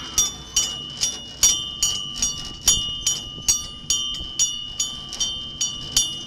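Brass bell on a miniature railway locomotive being rung steadily, struck about two to three times a second, each stroke ringing on into the next.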